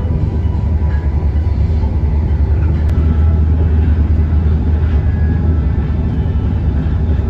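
Steady low rumble of an ERL electric airport train running along the line, heard from inside the carriage, with one faint click about three seconds in.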